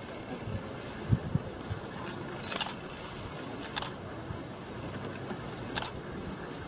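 Camera shutter clicking three times, a second or two apart, over a steady background hiss. Two low thumps about a second in are the loudest sounds.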